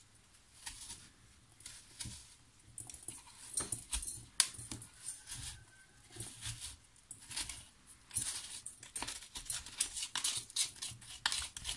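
A small metal tool scraping and picking at solid, tightly packed DCA4 coolant-additive pellets inside a coolant filter's additive chamber, with crumbs falling into a steel filter can. Irregular scratches and ticks, busier over the last few seconds.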